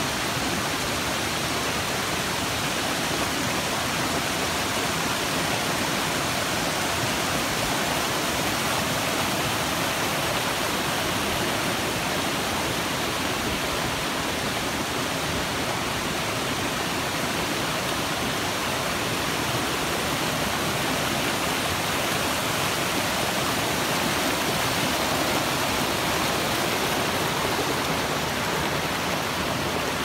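Steady rush of a mountain waterfall, water pouring and splashing over rocks, an even hiss with no change in level.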